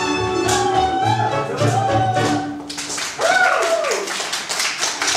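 Live string band of fiddles and double bass playing a lively dance tune, which breaks off a little over halfway through. Then hand clapping and a loud whooping shout.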